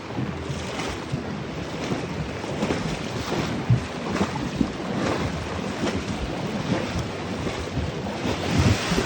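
Horses wading through a creek, hooves splashing in the water in an irregular run of splashes that grows louder near the end, with wind buffeting the microphone.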